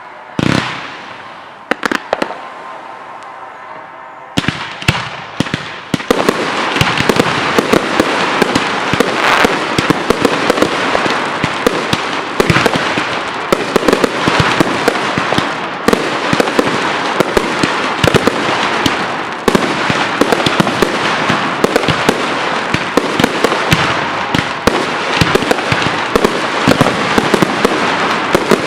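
Professional firework display: a few separate bangs at first, then from about four seconds in a dense, continuous barrage of rapid bangs over a steady crackle.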